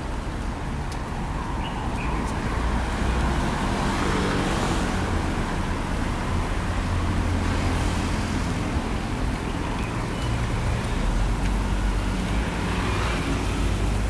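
City road traffic: a steady rumble of cars passing on a multi-lane road, with the tyre and engine noise swelling several times as individual vehicles go by.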